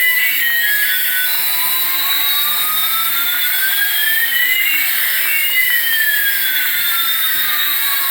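Electronic toy sound effect of a jet engine: a steady high hiss with two tones gliding against each other, one rising and one falling, crossing about halfway through.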